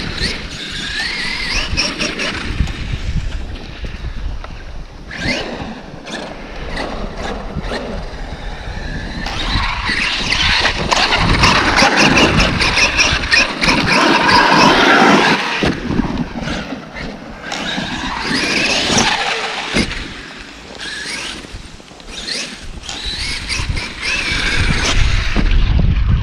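Traxxas X-Maxx RC monster truck's brushless electric motor and drivetrain whining, the pitch rising and falling again and again as the truck speeds up and slows.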